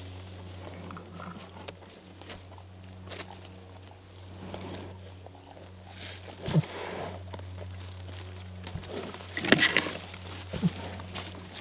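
American black bear foraging at close range, its muzzle and paws rustling and scuffing through dry leaf litter, with a louder burst of rustling about nine and a half seconds in. A steady low hum runs underneath.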